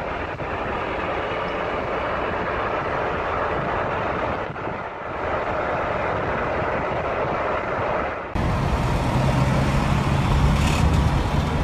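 Road noise and engine hum of a moving car, heard from inside the cabin. About eight seconds in it cuts abruptly to a louder, deeper rumble.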